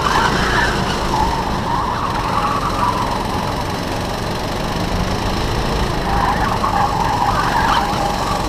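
Go-kart engine running hard at racing speed, its high whine rising and falling with the throttle through the corners.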